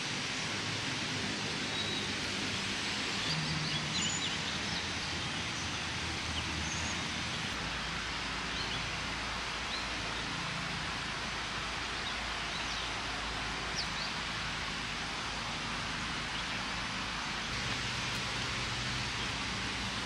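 Steady, even outdoor hiss of nature ambience, with a few faint, short, high bird chirps scattered through it.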